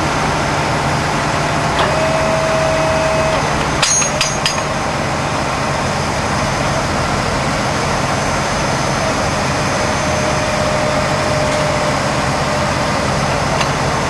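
Hydraulic wheel-lift of a hidden tow system unfolding from under a pickup, with a steady hum of its power unit running and a held whine twice as the arms extend. A few sharp metallic clicks come about four seconds in.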